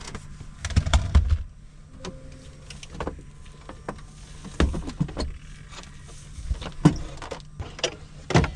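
Knocks, thumps and clatter of things being handled and packed away inside a camper van: a laptop set down and a swing-arm monitor folded against the wooden panelling. There are several separate knocks, the heaviest cluster about a second in, over a low steady hum.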